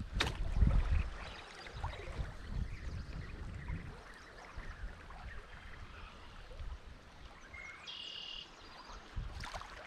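Wind gusting on the microphone in the first second or so, then faint creek water. A short animal call rings out about eight seconds in.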